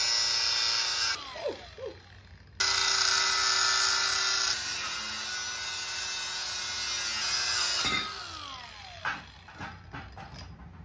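Electric power tool running at full speed twice, a steady high whine with hiss; each time it is switched off its pitch falls as the motor winds down. A few knocks follow near the end.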